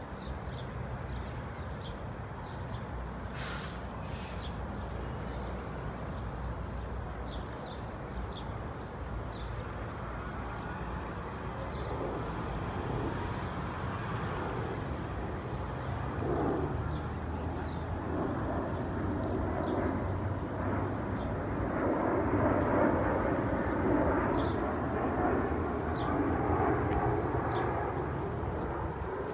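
Outdoor city-park ambience: a steady, distant traffic-like rumble that grows louder over the second half, with scattered faint high chirps.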